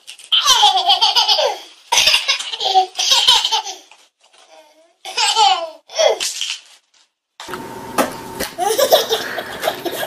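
Toddler laughing hard in several bursts of rapid, pulsing giggles with short pauses between. About three-quarters of the way through a steady hiss comes in, with softer voices over it.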